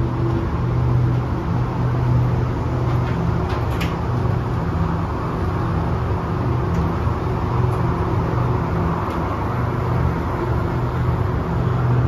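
Cable-pulled hovertrain people mover running, heard from inside the car: a steady low hum over a broad rush, with a few faint ticks about four seconds in.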